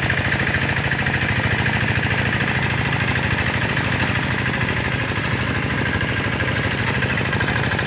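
Single-cylinder diesel engine of a two-wheel hand tractor running steadily with a fast, even chugging, pulling a harrow through a muddy rice paddy.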